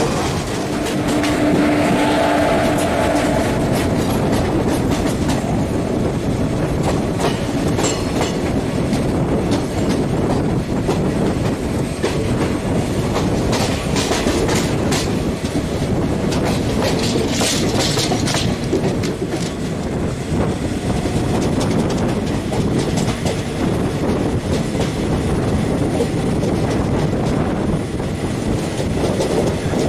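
Passenger train running, heard from an open coach doorway: a steady rumble of wheels on rail with clickety-clack over the joints. A horn sounds for about two seconds near the start, and the wheels clatter more sharply around 14 and 18 seconds in.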